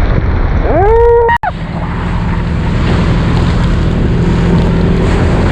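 Off-road vehicle engine running steadily under wind noise on the microphone. About a second in, a short pitched tone rises and holds, then the sound cuts out for an instant before the engine carries on.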